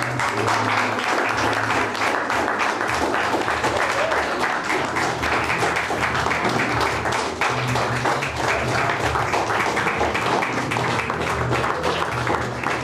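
A roomful of people applauding steadily, with music playing underneath.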